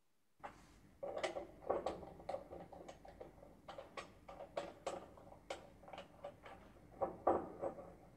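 Irregular clicks and light knocks of a blue plastic screw cap being handled and screwed onto a glass reagent bottle, starting about half a second in.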